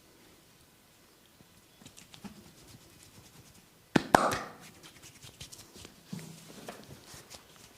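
A barber's hands massaging: faint rubbing and light taps, with two sharp cracks close together about four seconds in, the loudest moment.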